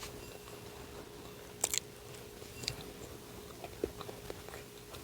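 Close-miked chewing and biting of a devilled-egg sandwich on a warmed English muffin: a few short crunches and wet mouth clicks, the strongest nearly two seconds in, over a faint steady hum.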